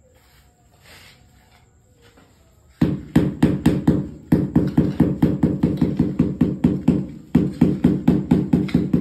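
Mallet tapping a ceramic floor tile down into wet mortar to bed and level it. The rapid, even knocks, about five a second, start about three seconds in and keep going.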